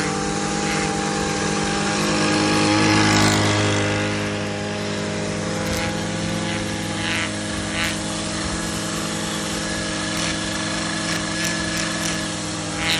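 Gas string trimmer running at high speed, its nylon line cutting grass around a small round plastic valve box cover. It gets louder about two to three seconds in, then settles to a steady drone, with a few sharp ticks later on.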